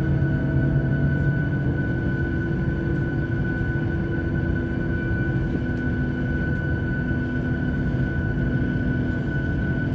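Boeing 737-700's CFM56-7B jet engines running through start-up, heard inside the cabin over the wing: a steady high whine over a lower hum and rumble.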